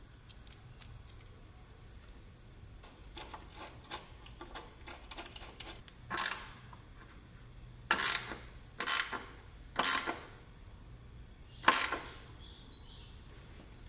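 Sharp metal clicks and taps from an adjustable brake proportioning valve being handled and fitted by hand, five separate clicks a second or two apart in the second half, after faint small ticks.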